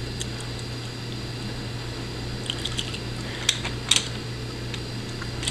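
Steady low hum of room noise, like a fan or air conditioner, with a few light clicks about three and a half and four seconds in.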